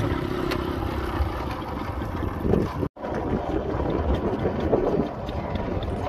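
Wind buffeting the microphone: an uneven low rumble that cuts out for an instant about three seconds in.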